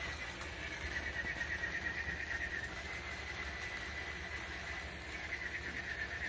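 A battery-powered toy dog's small motor whirring with a faint, wavering high whine that comes and goes twice, over a steady low hum.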